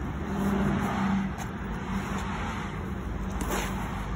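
Road traffic noise with a vehicle going by, swelling about half a second in and fading after a second or so, and faint rustling of plastic garbage bags being lifted out of a car.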